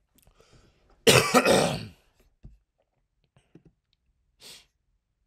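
A man coughing to clear his throat: one loud, rough burst about a second in, lasting about a second.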